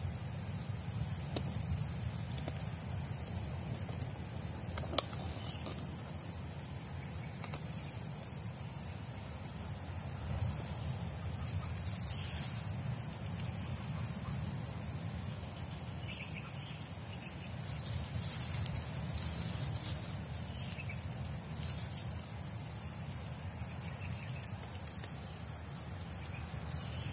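Swamp-side ambience: a steady high-pitched insect drone over a low rumble, with a few faint bird calls and one sharp click about five seconds in.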